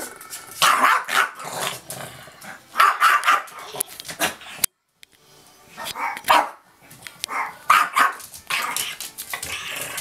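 Shih Tzu barking and growling in repeated bouts, a display of food aggression. The sound cuts out briefly a little before halfway through.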